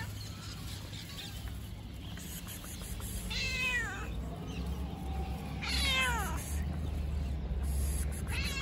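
A long-haired tabby-and-white cat meowing twice, about three and a half and six seconds in, each meow falling in pitch.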